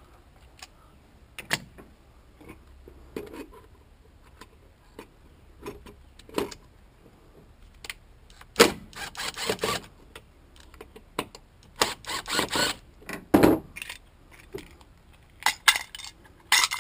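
Clinks, taps and rattles of small metal parts and tools as a vacuum cleaner's electric motor is taken apart and the Torx screws holding its fan are driven out with a cordless drill-driver. The sounds come in scattered knocks, with two denser runs of clattering past the middle.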